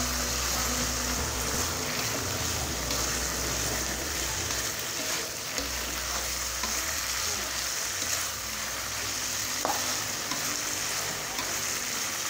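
Salted fish with tomatoes and chillies sizzling in oil in an aluminium wok, stirred steadily with a metal spatula that scrapes against the pan, with a few sharper scrapes.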